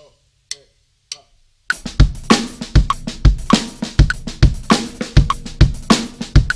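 Three sharp, evenly spaced clicks count in a drum-kit groove, which starts about a second and a half in. The groove is a linear pattern of bass drum, snare and hi-hat struck one at a time at a steady tempo, with some strokes doubled.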